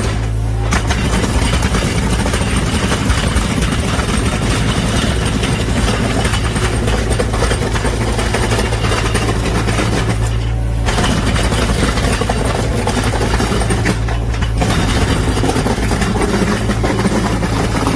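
Excavator-mounted concrete surface milling head grinding, a loud continuous rasping over the steady hum of the excavator's diesel engine. The grinding noise drops out briefly three times.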